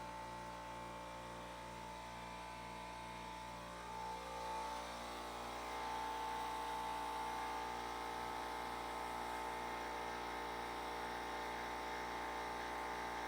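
Air compressor running, started to inflate a mower tire: a steady motor hum with several held tones, one of which climbs slightly about four seconds in and then holds, a little louder.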